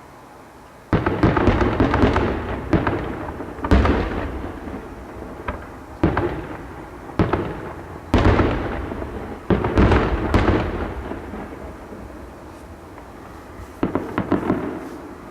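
Aerial fireworks bursting in a quick series of booms, each dying away over a second or so. After a short lull, one more burst comes near the end.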